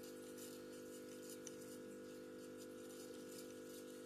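Faint light scratching and ticking, a stiff-bristled brush working over a laptop's internal parts, against a steady low electrical hum.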